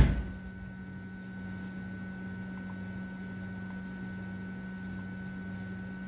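A single sharp knock right at the start, fading within half a second. After it, a steady low electrical hum with a thin, steady high-pitched tone over it.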